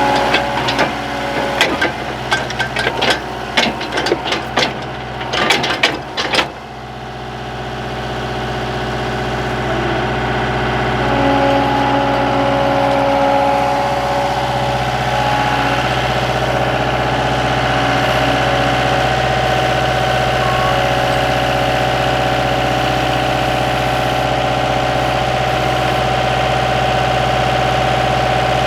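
Skid steer engine running, with a quick run of sharp clanks and knocks in the first six seconds or so; then the engine note climbs over a few seconds and holds steady.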